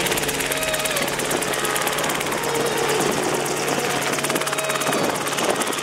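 Rotorway kit helicopter lifting off into a hover and turning away. Its two-blade rotor and piston engine run with a steady, rapid beat.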